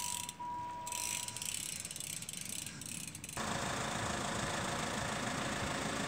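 Level-crossing warning bell sounding one steady high electronic tone, which stops about one and a half seconds in. About three seconds in, a louder steady rumble sets in suddenly: a car's engine idling close by while it waits at the closed barriers.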